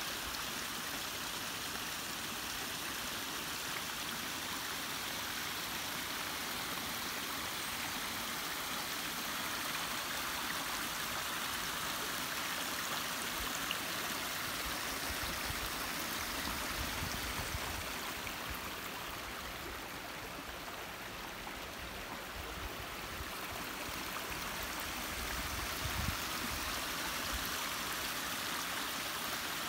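Creek water pouring over and around the logs of a small dam's log spillway, a steady rushing and splashing flow.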